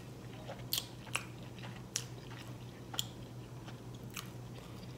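Close-miked mouth sounds of a person chewing food: a few sharp, wet clicks and smacks, roughly one a second, over a faint low hum.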